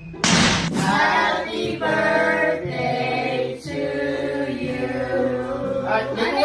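Choir singing held notes, with a short hissing burst right at the start.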